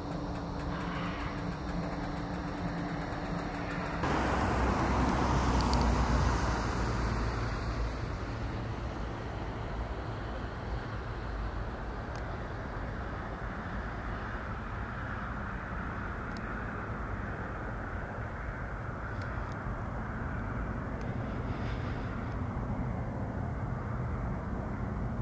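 Low, steady drone of the Lockheed C-130J Hercules' four turboprop engines as it approaches to land. A louder rush of noise starts abruptly about four seconds in and eases off over the next few seconds.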